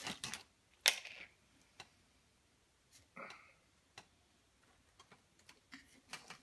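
Scattered light clicks and knocks of a cardboard Pringles can and its plastic lid being handled, the loudest about a second in. About three seconds in, a short sniff as the freshly opened can is smelled.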